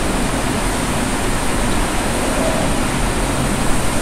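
Steady, even hiss of background room noise picked up by a phone's microphone.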